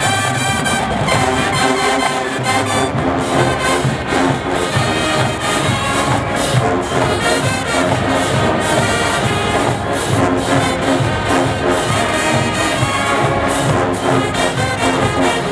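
HBCU-style marching band playing: brass section (trumpets, trombones) carrying the melody over a drum line's steady beat.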